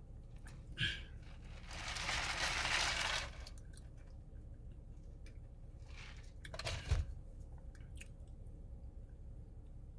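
Mouth chewing and crunching hard, brittle food. There is a short crack about a second in, a longer crunching bite about two seconds in, and another crunch ending in a sharp snap around seven seconds.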